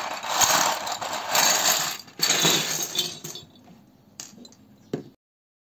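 Plastic model kit parts and packaging being handled, rustling and scraping in two long stretches, then lighter scratching and two sharp clicks near the end before the sound stops abruptly.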